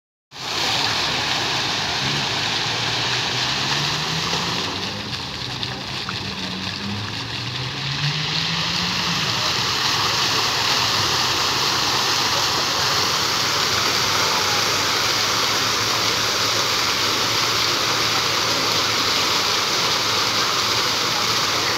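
Water jets of a large multi-jet fountain rushing up and splashing back into the basin: a steady, dense rush of falling water. It eases off for a few seconds about five seconds in, then comes back full.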